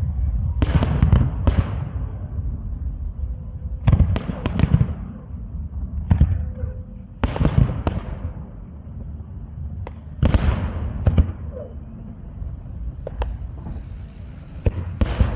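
Fireworks display: a series of sharp shell bursts, some single and some in quick clusters of two or three, coming every few seconds and each trailing off, over a steady low rumble.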